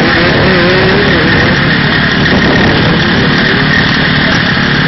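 Dirt bike engine running and revving through mud, its pitch wavering up and down over a steady loud noise.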